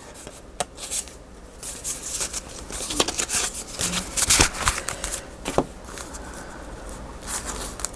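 Paper and card pieces being handled: rustling, sliding and crinkling, with a few light taps on the desk.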